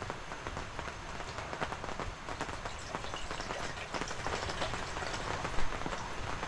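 Drizzle pattering and dripping: an even hiss with many small, irregular taps of drops.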